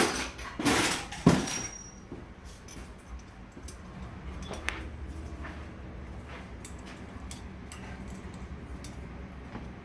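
Metal clinks and clicks of hand tools and a Stage8 bolt-locking clip being worked onto a turbo manifold bolt. Several sharp clinks come in the first two seconds, the loudest about a second in. Scattered light ticks follow.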